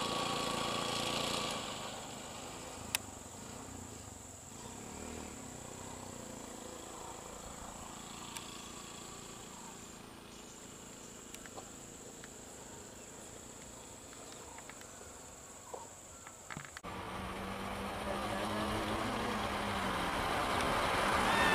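A steady high-pitched insect drone over faint roadside ambience, with a few faint clicks. About seventeen seconds in it breaks off abruptly into a louder vehicle engine hum that rises and falls in pitch.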